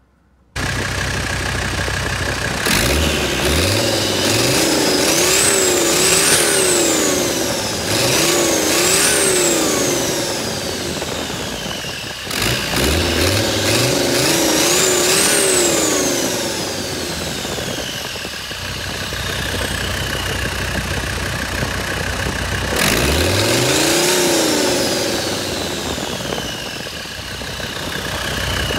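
Mercedes diesel engine revved several times with its AiResearch turbocharger's compressor inlet open, so the turbo's whine is heard directly: with each rev it climbs to a high pitch, then slowly winds down as the engine drops back to idle. The turbo is spinning freely and working well after the wastegate and fuel system were fixed.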